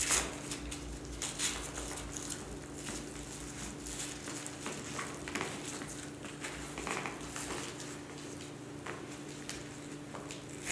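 Irregular rustling and scraping as a tourniquet strap is pulled tight and fastened around a manikin's thigh, with a louder scrape right at the start and a low steady hum underneath.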